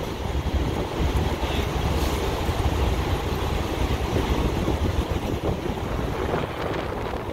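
Steady low rumbling noise of a semi-truck cab burning fully engulfed in flames, mixed with wind buffeting the microphone.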